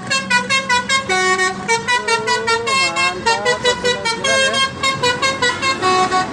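A bus's Basuri telolet horn playing a rapid melody of short, high toots that jump between several pitches over and over, with a few sliding, wavering notes partway through.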